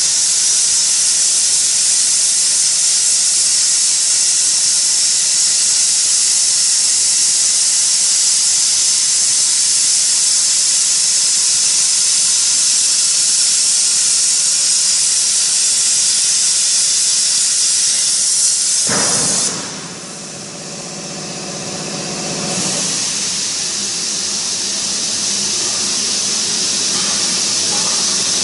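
CNC plasma cutter's torch hissing steadily as it cuts through 15 mm metal plate. A little over two-thirds of the way through, the hiss cuts off, leaving a lower hum with a few steady tones for about three seconds, before a hiss comes back somewhat quieter.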